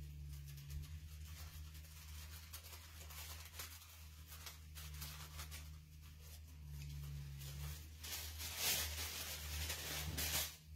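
Thin paper napkin being handled and peeled apart, giving faint rustles and small crinkles, with a louder rustle about eight seconds in. A steady low hum runs underneath.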